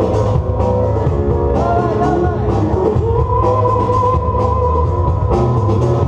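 Loud music with a steady beat and heavy bass, with a long held high note in the middle.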